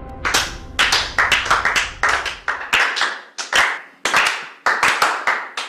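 Thin applause from a small audience: a few people clapping, the single claps distinct and echoing a little, starting a moment in and going on steadily.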